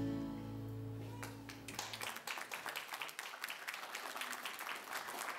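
Background guitar music that cuts off about two seconds in, followed by a small group of people clapping.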